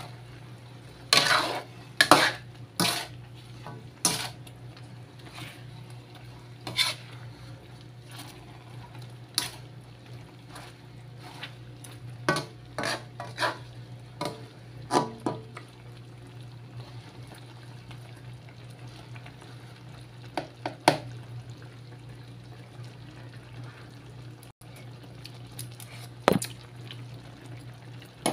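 Metal spatula scraping and clanking against a metal wok while chicken adobo is stirred and turned in its sauce. The strokes come close together in the first few seconds, then only now and then, over a steady low hum.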